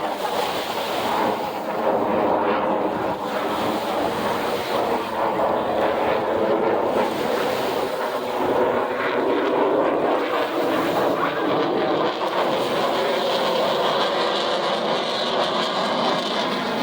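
F-35 Lightning II fighter jet's engine noise during a flyby: a loud, steady rushing roar with faint whining tones running through it.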